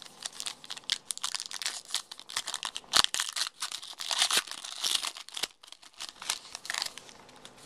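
A foil trading-card pack wrapper crinkling and crackling as it is torn open by hand, a dense run of sharp crackles with one loud crack about three seconds in.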